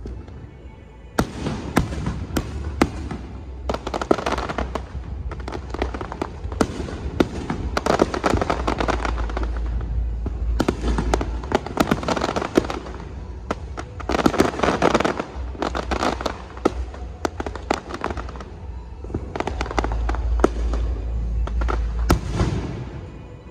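Aerial fireworks display: shells bursting in rapid succession with many sharp bangs and crackling. It starts about a second in, comes in heavy volleys through the middle and dies away near the end.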